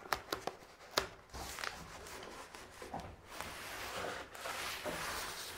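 Silver-backed foam tape (Gapotape) being rubbed and pressed along the edge of a foil-faced PIR insulation board: soft uneven rustling and rubbing, with a few light clicks near the start.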